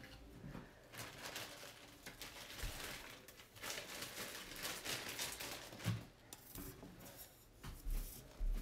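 Fabric rustling and scratching as a strip of textile is wound by hand around a thin drinking straw, in uneven bursts, with a few soft bumps of handling on the table.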